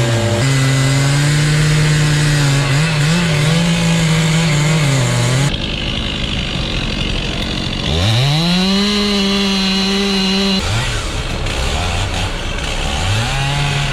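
Chainsaw running at high revs while cutting through a large log, its pitch sagging and recovering under load. About eight seconds in, the engine revs up from low to high and holds. The sound jumps abruptly twice.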